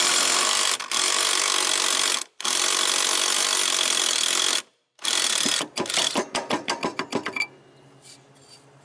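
Impact wrench hammering on a riding mower's blade-spindle pulley nut to break it loose, in three long bursts, then a quick run of short bursts as the nut comes off.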